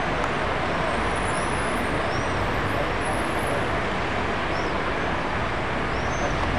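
Steady city traffic din, an even rushing noise with no single vehicle standing out. A few short, faint high chirps come over it.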